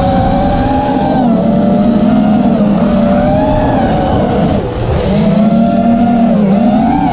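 Armattan Rooster FPV quadcopter's brushless motors and propellers whining, heard close from its onboard GoPro with rushing wind. The pitch rises and falls with throttle, dipping sharply a little before five seconds in and again near the end before climbing back.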